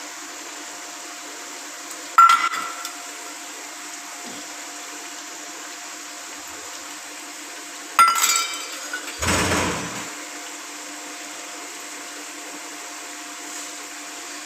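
Small stainless steel bowls set down on a marble counter: two sharp metallic clinks with a brief ring, about six seconds apart, the second followed a second later by a duller scraping knock.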